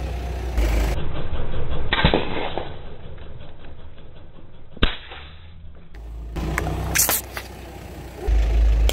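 A car tyre rolls over coloured plastic reusable ice cubes on wet asphalt, crunching them with a single sharp crack about five seconds in. A low engine and tyre rumble is heard at the start and again near the end.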